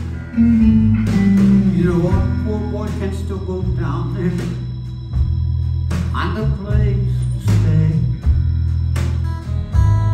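Live country-rock band playing an instrumental break: an electric guitar solo with bent notes over strummed acoustic guitar and a steady bass.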